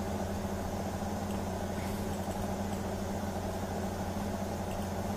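Steady low background hum, even and unchanging, with a couple of faint clicks about one and two seconds in.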